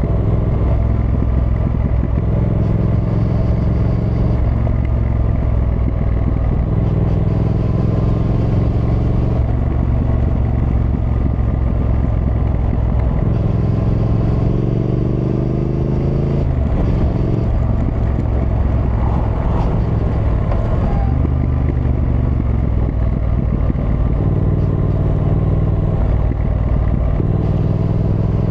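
Triumph Thruxton R's 1200 cc parallel-twin engine running while riding, its pitch stepping up and down several times with gear changes and throttle. A longer rise in revs in the middle ends in a sudden drop.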